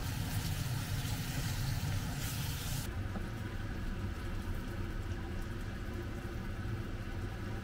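Steady low hum of a kitchen fan, with a hiss over it that cuts off suddenly about three seconds in.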